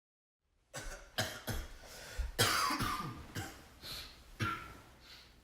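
A person coughing in a fit of about seven harsh coughs, starting about a second in and tailing off near the end.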